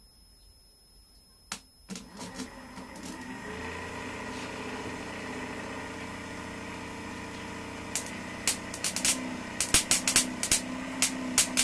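A 12-volt DC motor clicks on and spins up a homemade generator built on a car alternator armature, settling into a steady whirring hum with a few steady tones. From about eight seconds in, a rapid run of sharp snaps comes as crocodile clip leads are touched to a battery terminal.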